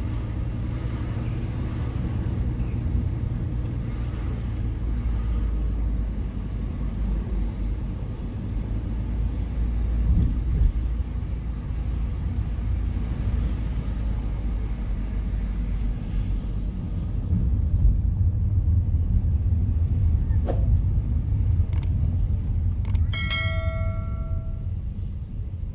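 Steady low rumble of a car's engine and tyres heard from inside the cabin while driving slowly along a town street. Near the end a few sharp clicks and a short bell chime from a subscribe-button animation.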